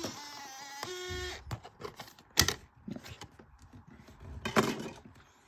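A short electronic tone sequence in the first second, then scattered clicks and knocks of objects being handled, the loudest about two and a half and four and a half seconds in.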